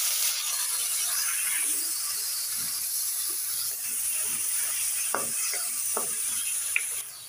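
Chopped tomatoes sizzling in hot oil and onions in a karahi, with a spoon knocking and scraping against the pan twice while stirring. The sizzling cuts off near the end.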